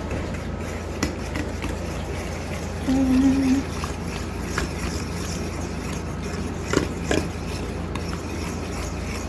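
Spoon stirring and scraping in a mixing bowl, with a couple of short knocks about seven seconds in, over a steady low room hum. A brief low steady tone about three seconds in is the loudest thing.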